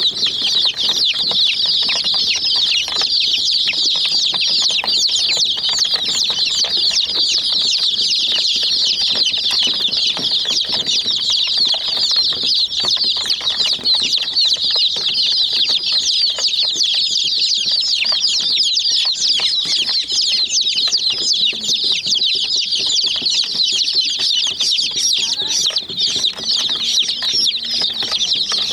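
A flock of domestic chicken chicks peeping continuously, many high chirps overlapping.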